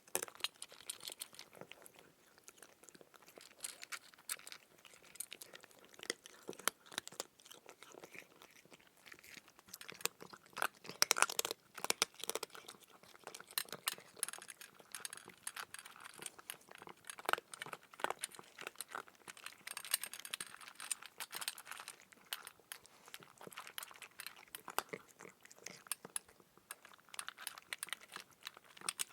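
Close crunchy chewing: a continuous, irregular run of crisp crunches and crackles, loudest about eleven seconds in.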